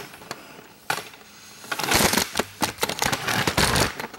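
Camera tripod being lowered and adjusted: a single click about a second in, then a couple of seconds of rattling and clicking handling noise.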